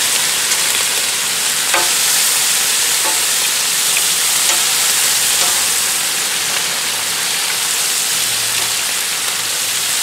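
Bacon sizzling steadily in its own fat on a hot steel flat-top griddle, with a few light clicks of metal tongs as the strips are turned.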